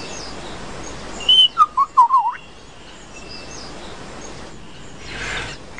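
Male superb lyrebird calling: a quick run of short whistled notes sliding up and down, about a second in, over a steady faint hiss.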